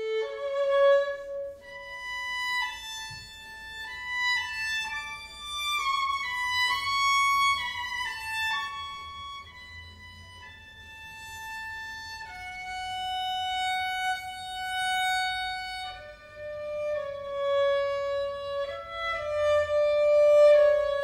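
Instrumental music: a single slow melody of long held notes, without singing.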